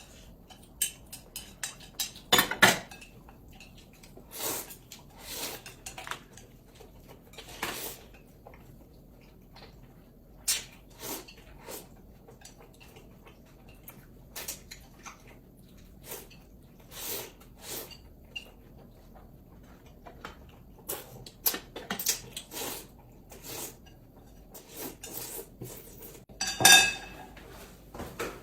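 Tableware clinking during a meal: utensils tapping and scraping against bowls and plates in short, irregular clicks, with one louder ringing clink near the end.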